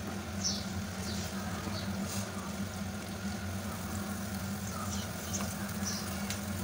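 Beef masala paste frying in a karahi as it is stirred for the bhunai, with short scrapes of the spatula against the pan now and then, over a steady low hum.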